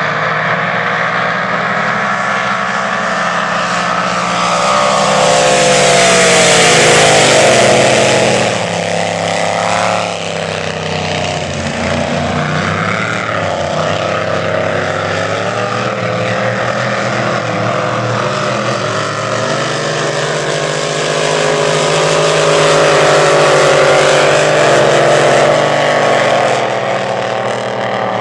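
Engines of unlimited displacement-class race boats running hard around the course, their pitch sliding down and back up through the turns. The sound swells louder twice, around five to eight seconds in and again from about twenty to twenty-six seconds in, as the boats come nearer.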